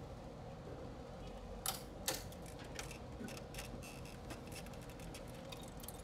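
Hands working the wiring and plastic connectors inside an air conditioner's electrical box: two sharp clicks about two seconds in, then a string of small irregular clicks and light rattles.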